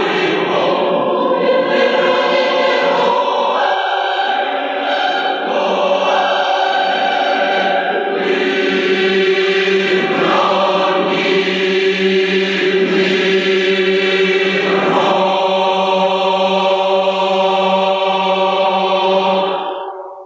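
Choir singing a slow passage of sustained chords, ending on a held final chord that is released just before the end.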